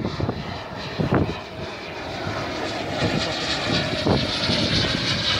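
Radio-controlled model aircraft flying overhead: a steady high-pitched motor whine that grows louder in the second half.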